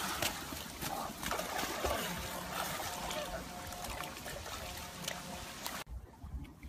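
Water splashing and sloshing around a person floundering in a river after falling in, fading over several seconds and cutting off abruptly near the end.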